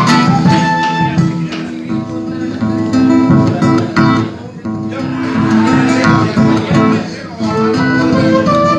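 Folk ensemble playing an instrumental piece: strummed acoustic guitars keep a steady rhythm, and a flute melody comes back in near the end.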